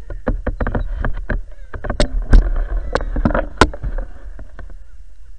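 A mirror carp thrashing in a landing net at the water's surface, a quick run of splashes that peaks near the middle and dies away after about four seconds.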